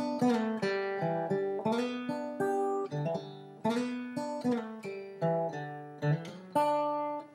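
Background music: acoustic guitar playing a run of plucked and strummed notes in a steady rhythm.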